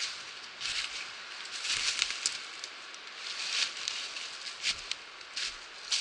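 Footsteps crunching through dry fallen leaves and loose stones, a crackling rustle with each step, roughly once a second.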